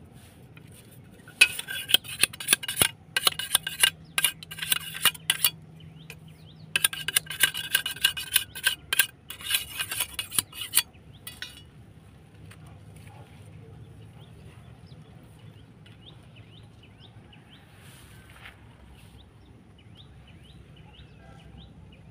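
Metal blade striking a fresh bamboo stem on a wooden chopping block: many quick, sharp strikes with a metallic ring, in two runs of about four seconds each. After that the strikes stop, leaving faint bird chirps.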